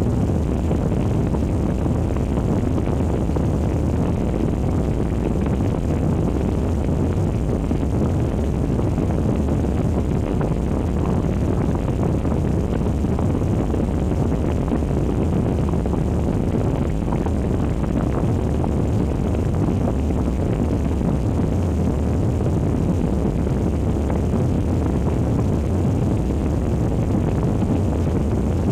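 Steady low rumbling drone made as a scary sound effect, unchanging throughout.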